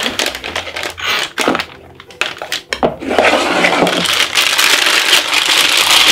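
A whisk clicking and scraping against a bowl as whipped ganache is loaded into a plastic piping bag, then, from about three seconds in, the plastic piping bag crinkling loudly and steadily as it is handled and twisted.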